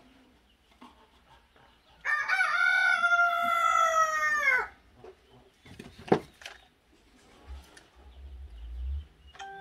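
A rooster crows once: one long call of about two and a half seconds that falls away at the end, the loudest sound here. A single sharp knock follows a couple of seconds later, and a cordless drill starts whining just before the end.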